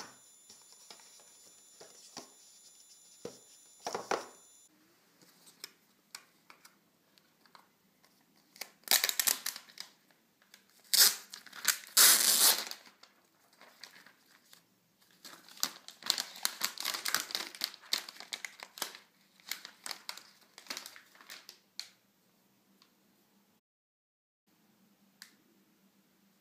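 Packaging wrap being pulled off and crumpled by hand: crinkling and tearing. It comes in a few loud bursts about a third of the way in, then a longer stretch of quick crackles, and goes quiet near the end.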